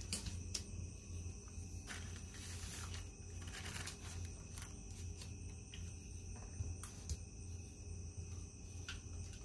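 Insects trilling steadily outside over a low hum, with a few faint clicks of a raccoon's claws on a tile floor as it walks, and a brief rustle a few seconds in.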